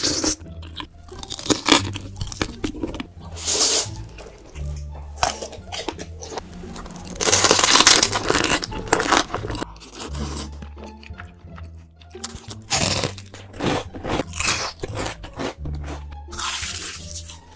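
Close-miked eating sounds: crisp fried food crunched in big bites and chewed, with the loudest stretch of crunching about eight seconds in, over background music with a repeating bass line.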